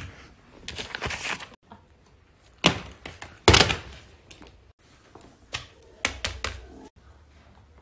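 Fidget toys being handled: irregular clicks, taps and thuds, with a few short scraping or rustling bursts between them.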